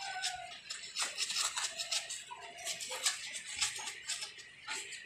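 Small brush scrubbing the wet, finned cylinder head of an air-cooled motorcycle engine coated in an oxalic acid and dish soap cleaning solution: quick, repeated scratchy strokes, with a few short squeaks mixed in.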